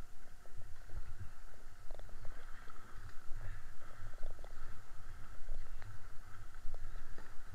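Rushing of a swollen river in flood, with the splashes and small knocks of canoe paddle strokes, over an uneven low rumble of wind on the microphone.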